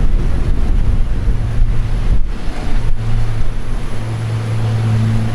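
Wind buffeting the microphone over a low engine rumble, which settles into a steady low hum about halfway through.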